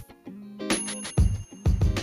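Intro music with a steady beat. The beat drops out briefly at the start, a bright bell-like ring comes in under a second in and keeps ringing, and the beat resumes about a second in.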